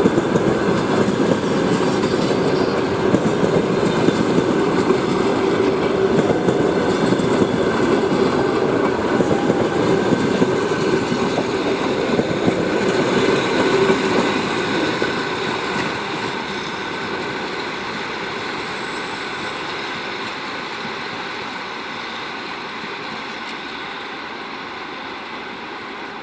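Passenger coaches of a departing train rolling past at speed, their wheels clattering on the rails. The sound fades steadily from about two-thirds of the way in as the tail of the train moves away.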